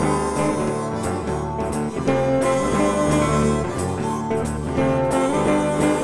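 Background music: a guitar-led instrumental with a steady beat.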